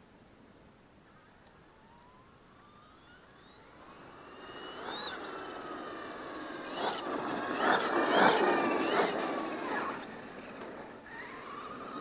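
Traxxas X-Maxx RC truck's brushless electric motor whining, starting faint and rising in pitch as it speeds up. It grows loud with a rough rush of tyre noise about eight seconds in, and the whine swoops up and down again near the end.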